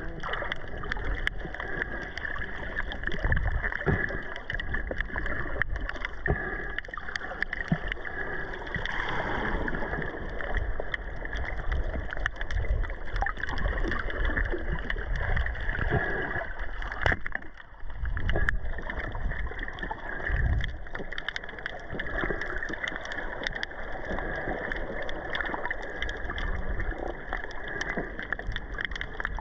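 Underwater noise picked up by a camera in a waterproof housing: a continuous muffled water wash with many small clicks and crackles, dipping briefly a little past halfway.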